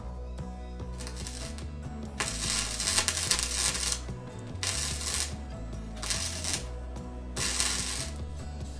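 MIG welder running in four short bursts of crackling hiss, welding a steel repair patch over rusted body metal, with background music underneath.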